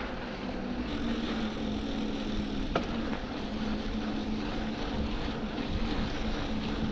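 A 2020 Schwinn Axum mountain bike being ridden: a steady low hum with a rushing background while rolling along, and a single sharp click a little under three seconds in.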